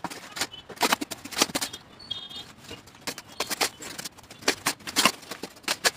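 Cardboard box and packing tape being torn open by hand: a run of irregular ripping and crackling, with a brief high squeak about two seconds in.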